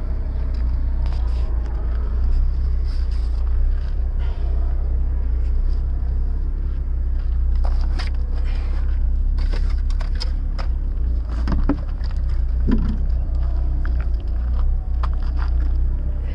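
Steady low rumble throughout, with scattered clicks and rustles from things being handled in the car's cargo area.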